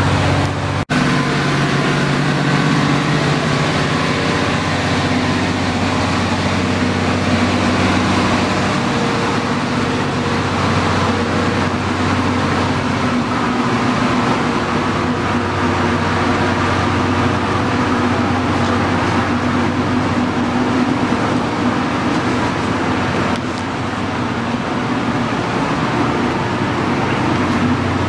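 Steady vehicle running noise: a low engine drone under a continuous rushing hiss, broken by a sharp momentary dropout about a second in.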